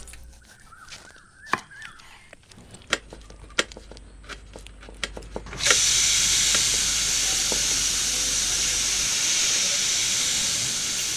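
Scattered sharp clicks and knocks, then a steady hiss that starts suddenly about six seconds in.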